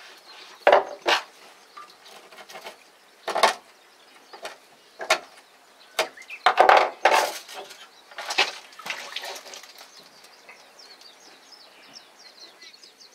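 Sharp knocks and slaps on a fiberglass boat deck as a red sea bream is handled, spiked and bled by hand for ikejime. About ten hits come in the first nine seconds, then faint high chirping near the end.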